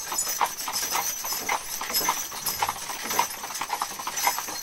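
Mule team's hooves clip-clopping at a steady walk, about three or four uneven hoof strikes a second, heard from inside the covered wagon they are pulling.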